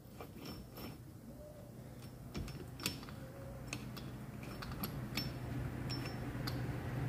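Scattered light metallic clicks and taps of motorcycle engine and gearbox parts being handled and fitted by hand. A low steady hum underneath grows gradually louder toward the end.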